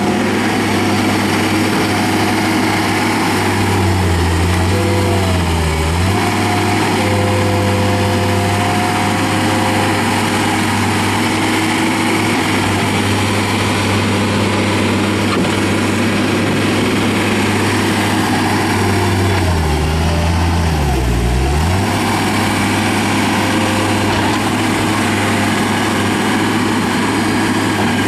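John Deere 325 skid steer's five-cylinder turbo diesel running steadily at working speed. Its pitch dips twice, about four seconds in and again near twenty seconds, pulling down as under load and then recovering.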